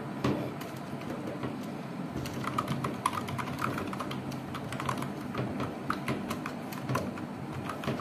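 Typing on a Havit HV-KB329 low-profile chocolate-key keyboard: a quick, irregular run of short key clicks that picks up about two seconds in.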